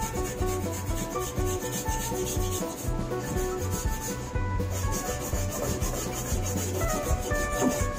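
Quick, repeated hand-scrubbing strokes on the bare sheet-metal firewall of a 1965 Mustang, over background music.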